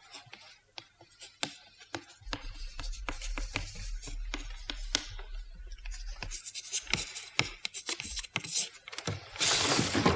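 Chalk or slate pencil tapping and scratching on a writing slate in quick, irregular strokes as a reply is written out, with a louder rasp near the end.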